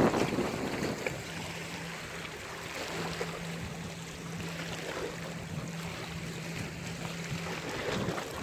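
Sea waves washing onto a beach: a wave surges loudly right at the start and falls away to a steady hissing wash, and another swell builds near the end. A low steady hum runs underneath through the middle.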